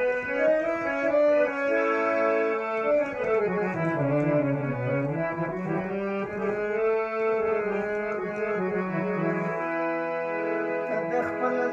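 Electronic keyboard playing an instrumental passage: a melody over held chords, the line gliding down and back up in the middle.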